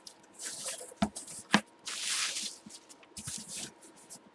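Bubble wrap rustling and crinkling in short bursts as it is handled and pulled out of a cardboard box. Two sharp clicks come about a second in, half a second apart.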